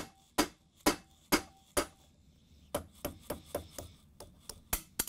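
Hammer striking a steel punch to drive the groove pin out of a stand mixer's planetary and center shaft. Five sharp taps about half a second apart, then a run of lighter, quicker taps, with a faint metallic ring after some strikes.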